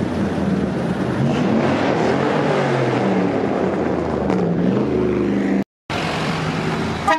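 Vintage pickup truck's engine running as it drives slowly past, its pitch rising and falling gently. The sound drops out completely for a moment near the end, then a vehicle engine is heard again.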